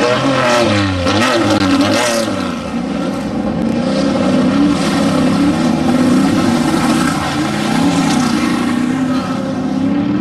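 Off-road desert race vehicle's engine running hard at high revs, its pitch rising and falling again and again as the throttle is worked, with the sharpest swings in the first couple of seconds.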